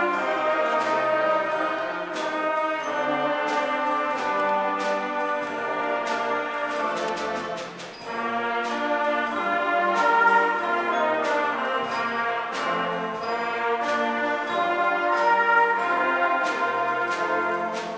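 A concert band of woodwinds and brass plays a piece in sustained chords with sharp accents. The sound dips briefly about eight seconds in before the band comes back in full.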